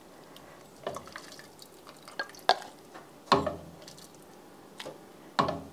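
A ladle scooping navy beans and broth from a pot and pouring them into a ceramic mug, with a few short knocks of the ladle against the pot and mug, the loudest about three seconds in and again near the end.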